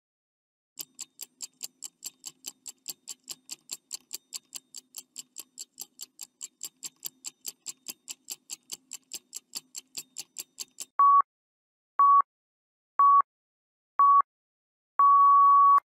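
Countdown-timer sound effect: a stopwatch ticking about four times a second for some ten seconds, then four short beeps a second apart and a longer final beep as the time runs out.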